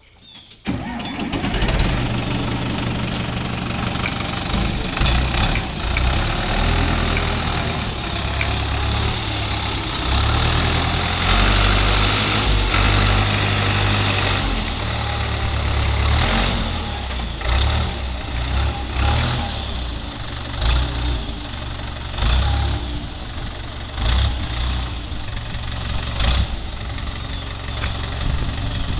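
Case 530 Construction King backhoe engine starting up about a second in, then running, with repeated short surges in the engine sound.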